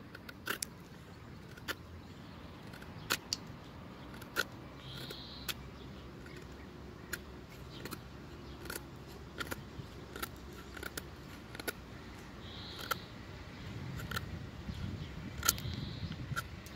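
SRM 9019 folding knife whittling a wooden stick: irregular sharp clicks and snaps as the blade bites into the wood and shaves it off.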